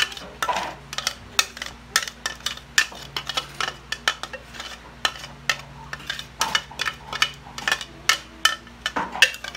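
Blender jar knocking and clinking against a roasting pan as thick blended marinade is shaken and tapped out of it: a string of irregular sharp taps, a few a second, over a steady low hum.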